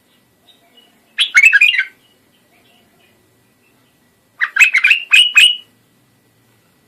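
Iraqi bulbul (white-eared bulbul) singing two short phrases of quick notes, one about a second in and one about three seconds later, the second slightly longer.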